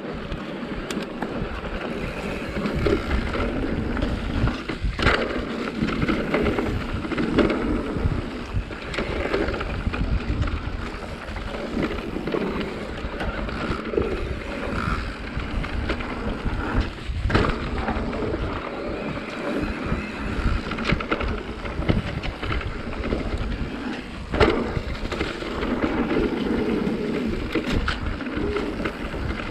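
Mountain bike riding down a dirt forest trail: tyres rolling over dirt and leaves and the bike rattling over the rough ground, with wind buffeting the microphone. A few sharper knocks stand out as the wheels hit bumps, one about five seconds in and others past the middle.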